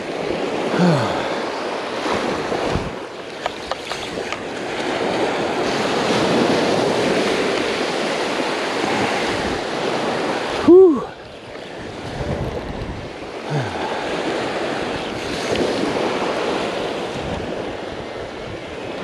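Surf breaking and washing up the beach, with wind on the microphone. About eleven seconds in, a short, loud pitched sound rises and then falls in pitch.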